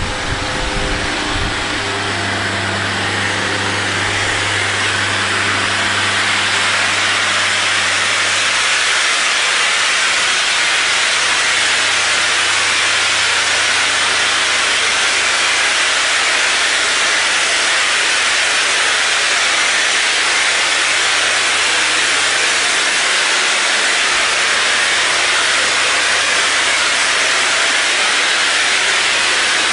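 Spray-plaster machine running with a low steady hum, under the loud, steady hiss of a hose-fed spray gun spraying plaster onto a wall. The hum fades after about nine seconds, leaving the hiss.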